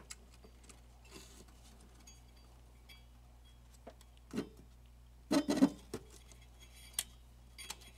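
Light clicks and plastic handling noises of zip ties being fitted to hold a filter capacitor on a circuit board, with two louder bursts of handling about halfway through. A faint steady low hum lies underneath.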